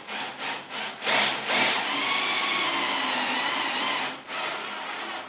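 Cordless drill with a countersink bit boring into a wooden rail: four short trigger bursts, then a steady run of about two and a half seconds as the bit cuts in, and a shorter, quieter run near the end.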